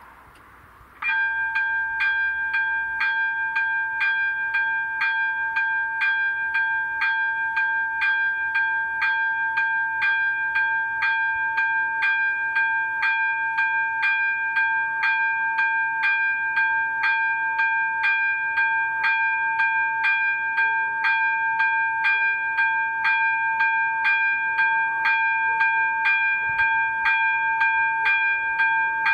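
ZV-02 electronic level-crossing bell switching on about a second in and ringing steadily at about two strokes a second. The crossing has just been activated, warning of an approaching train.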